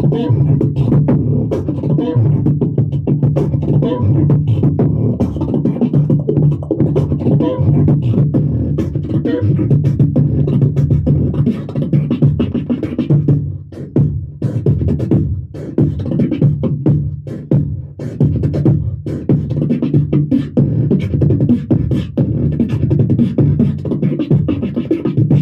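Solo beatboxing into a handheld microphone, amplified: a sustained low vocal bass line runs under rhythmic kick, snare and hi-hat sounds, with brief breaks in the pattern in the second half.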